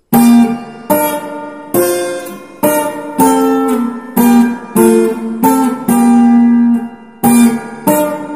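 Bengawan cutaway acoustic guitar played with a pick: a melody of picked notes and partial chords, a sharp attack about every second, each note ringing and fading before the next.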